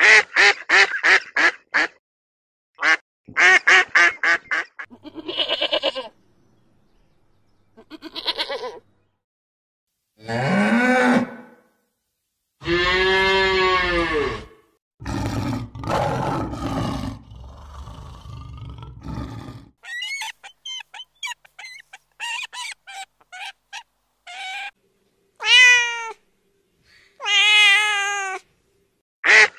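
A run of animal calls. First Canada geese honk in quick repeated bursts, then a cow gives a long moo near the middle, and near the end a cat meows several times.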